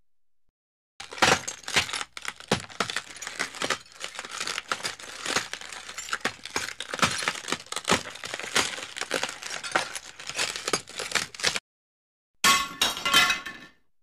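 Glass being broken and crushed: a long, dense run of sharp cracks, clinks and crunches of shards that stops abruptly. After a short pause, a brief second burst of glass breaking and tinkling comes near the end.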